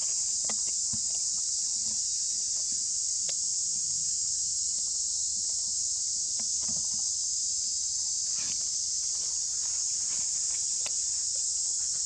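A chorus of insects makes a steady high-pitched drone throughout, with scattered faint clicks and rustles over it.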